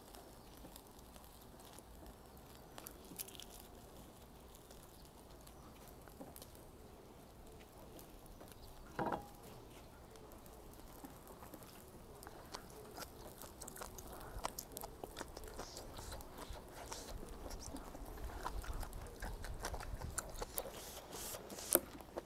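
Close-up chewing of grilled hagfish, with small wet, clicky mouth sounds that begin about halfway through and grow busier toward the end. The first half is quiet apart from one brief sound.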